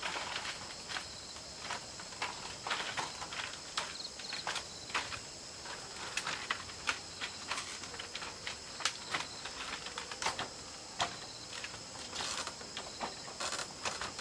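Steady chirring of night insects such as crickets, with scattered light knocks and clatters of woven bamboo panels being lifted and set in place to close up a bamboo hut.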